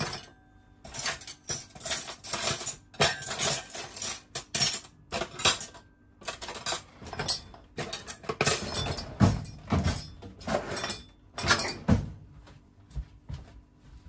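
Metal cutlery and tableware clinking and clattering in a quick run of short knocks and rattles, with brief pauses, as a spoon is sought out and handled.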